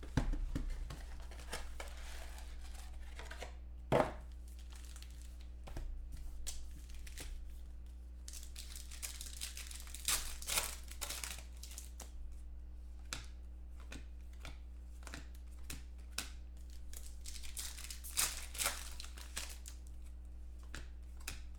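Foil trading card packs from a 2014 Contenders football box being torn open by hand, in crinkling rips with sharp clicks as the wrapping and packs are handled. A loud snap comes about four seconds in, with bursts of tearing around the middle and again near the end.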